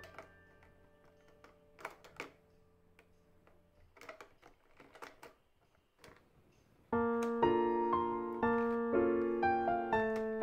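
Piano background music: a faint held chord fades out while a few light plastic clicks sound, as pens are set into a plastic pen holder. About seven seconds in, piano music starts much louder, with a new note or chord roughly every half second.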